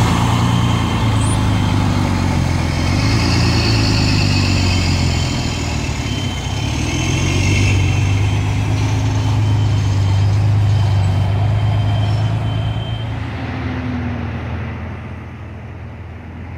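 Heavy diesel engine of a truck-mounted crane running steadily at idle, a low even engine note that drops in level over the last few seconds.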